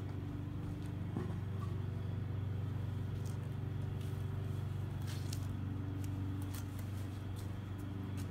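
A machine running with a steady low hum, with a few faint clicks over it.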